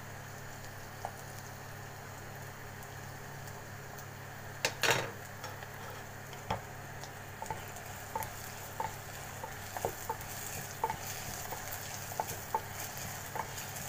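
Wooden spoon stirring chopped onions and cumin seeds frying in oil in a clay pot, with a light sizzle and the spoon knocking and scraping against the pot in many short clicks. A louder clatter comes about five seconds in, and the sizzle grows in the second half over a steady low hum.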